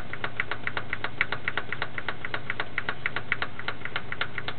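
Fuel pump of a 1948 Daimler DE36 ticking rapidly and evenly, about six clicks a second, as it is primed to send fuel to the carburettors.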